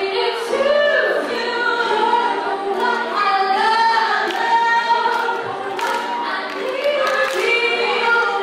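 Three girls' voices singing a pop song together in harmony through microphones, unaccompanied, a cappella style.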